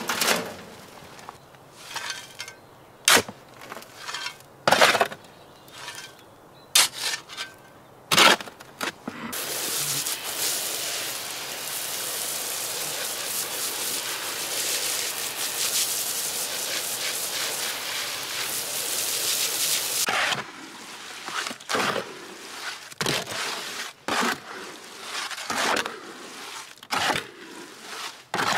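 Hand-mixing concrete in a steel wheelbarrow: a bucket is emptied into the barrow with several sharp knocks, then water from a garden hose rushes steadily into it for about ten seconds, and from about twenty seconds in a hoe scrapes and churns the wet mix against the barrow's metal tray in strokes about a second apart.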